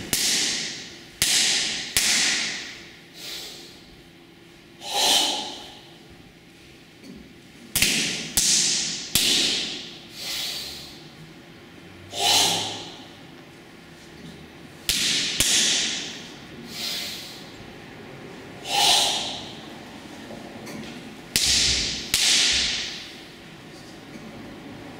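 A karateka's forceful Goju-ryu sanchin-style breathing: about fifteen hard, hissing exhalations at irregular intervals, each starting sharply and fading within a second. A few of them carry a sharp smack of hands striking the bare tensed torso as the body is tested.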